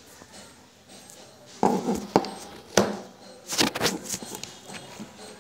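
Handling noise from the recording phone: a few sharp knocks and rubbing close to the microphone, bunched together in the middle, then lighter rustling.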